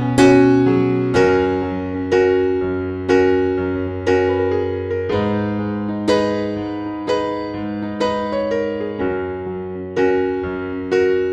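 Slow background piano music, notes or chords struck about once a second and left to ring over held bass notes.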